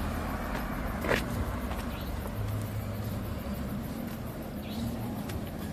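Road traffic passing: a steady rumble of cars, with a short sharp sound about a second in.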